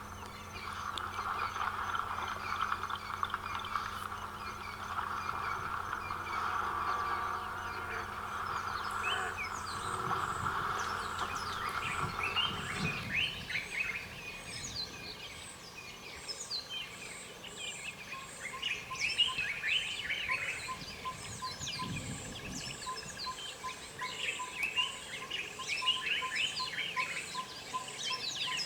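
Several birds chirping and calling in short, varied notes over an insect's steady pulsing trill. A steady low hum with a hiss underlies the first half and stops about halfway through.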